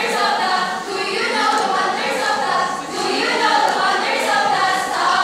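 Speech choir: a large group of young voices chanting lines in unison, with rising and falling pitch and short pauses between phrases.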